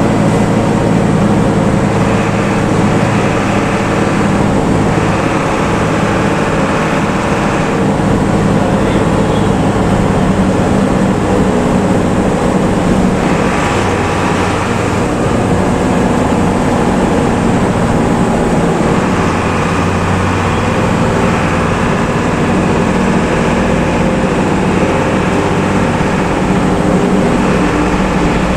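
Bus diesel engine running steadily on the road, its modified 'ngorok' exhaust giving a low, snoring note over tyre and road noise.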